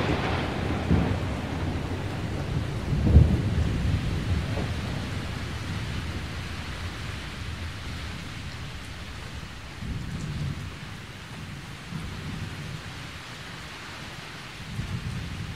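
Thunderstorm: steady rain with thunder rolling. A rumble dies away at the start, a stronger roll of thunder comes about three seconds in, and fainter rumbles follow later and near the end.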